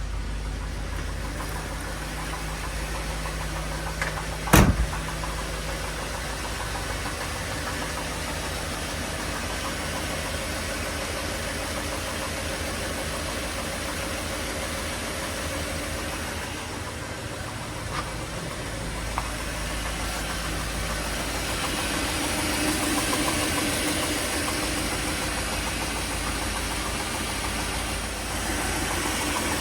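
1957 Mercury 368 cu in V8 running at a steady speed with a knock from inside the engine, getting somewhat louder in the last third. A single sharp click sounds about four and a half seconds in.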